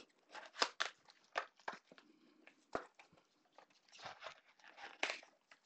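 Plastic shrink wrap on cardboard blaster boxes crinkling and tearing as it is stripped off by gloved hands, in a run of irregular sharp crackles and rustles.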